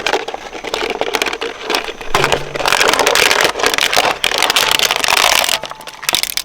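Shredder chewing through an object: dense crunching and crackling with many sharp cracks, heaviest from about two seconds in until near the end.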